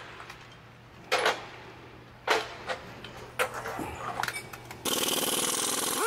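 Steel pistons and connecting rods clinking as they are set down in a metal tray, a few sharp ringing knocks. About a second before the end comes a steady hiss of a pneumatic tool running on the engine block.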